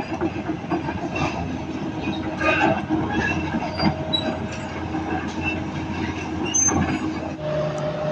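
Volvo EC360BLC crawler excavator travelling on its steel tracks, the track chains clanking and squealing over the diesel engine. The machine is on a travel test, checking that the adjusted pump flow keeps both tracks running evenly.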